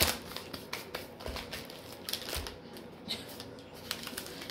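Small plastic treat bags crinkling and rustling as cookies are packed into them, with scattered light clicks and taps.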